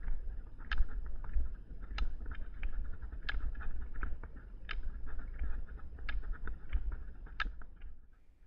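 Rollerski pole tips striking the asphalt in a steady rhythm on an uphill climb, a strong sharp click about every second and a quarter with lighter clicks between, over a low rumble. The clicks die away near the end.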